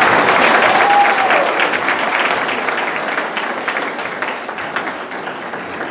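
Audience applauding, loudest at first and slowly dying down, with a brief call rising and falling in pitch about a second in.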